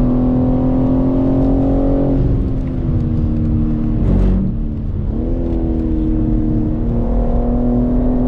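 BMW M3 Competition's twin-turbo straight-six heard from inside the cabin, pulling at high revs and then dropping in pitch as the car slows from speed. A short sharp burst comes about four seconds in as it changes gear, and the revs build again near the end.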